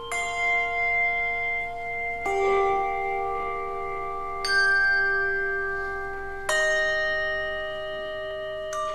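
Handbell choir playing a slow piece: a chord of bells is struck about every two seconds, five times, each left to ring on into the next.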